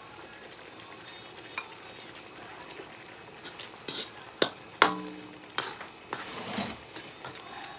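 Food sizzling in a pan, with a handful of sharp knocks from about three and a half seconds in, one of which rings briefly like a utensil striking the pan.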